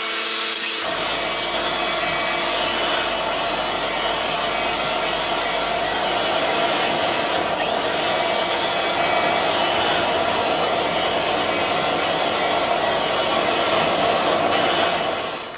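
Makita angle grinder spinning a homemade blower fan, running steadily at full speed and blowing torch-heated air. It winds down right at the end.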